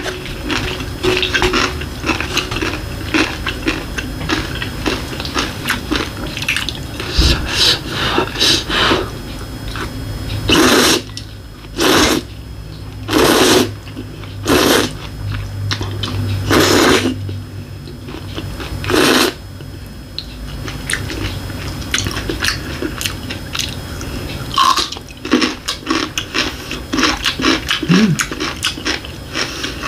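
Someone eating tomato ramen: chewing and small clicking mouth and utensil noises, with a run of about six loud noodle slurps in the middle, each about half a second long.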